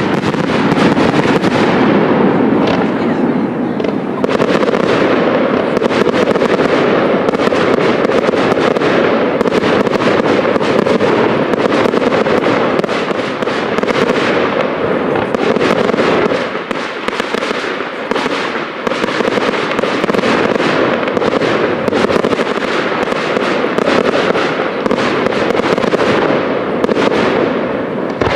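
Professional fireworks display: a dense, unbroken crackle of many bursting shells and effects, with sharp bangs throughout, easing slightly a little past the middle. It is heard through a microphone that the uploader says gave trouble on this recording.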